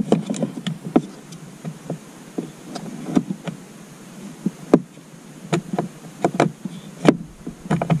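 Irregular plastic clicks and knocks from a hand working a blend door actuator into place on the plastic HVAC heater box of a 1997 Ford F-150, feeling for the shaft hole. The knocks come sparsely at first, then more often in the last three seconds.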